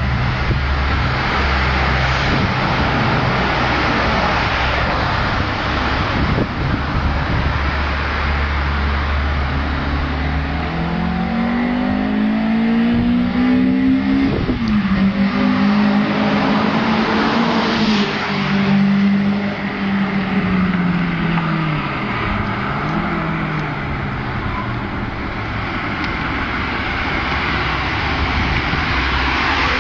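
Renault Clio Sport's engine and Magnex exhaust in a tunnel: a steady low drone, then the engine revs up hard for about four seconds, drops sharply at the top as the driver shifts or lifts off, holds briefly, and falls away, with one short dip and rise in pitch near the end.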